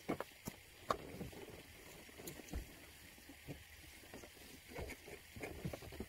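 Faint, irregular rustles and light knocks of dry mulch being handled and spread by hand, with a couple of sharper clicks in the first second.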